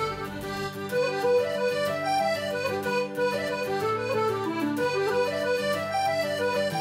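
Background music: a solo accordion tune, its melody moving over held bass notes, with a falling run about two thirds of the way through.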